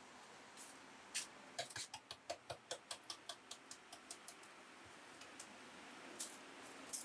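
A quick run of sharp taps, about four to five a second for a couple of seconds and fading out, with a few single clicks before and after.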